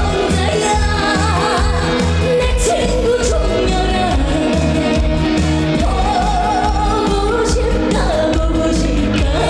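A woman singing a Korean trot song live with a wavering vibrato, over loud accompaniment with a steady bass beat.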